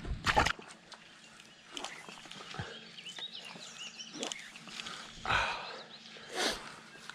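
A crappie tossed back into a pond lands with a brief splash. Faint bird chirps follow, and later two short noises.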